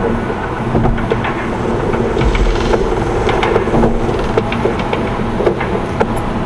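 Road and engine noise inside a moving car's cabin: a steady low rumble with scattered clicks and knocks throughout.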